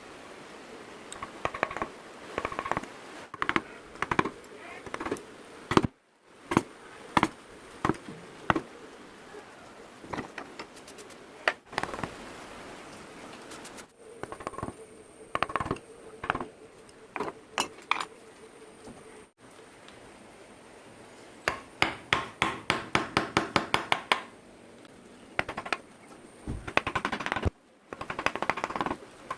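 Carving chisel working teak wood: irregular sharp taps and cuts, then a quick run of about a dozen even taps, about five a second, a little past the middle.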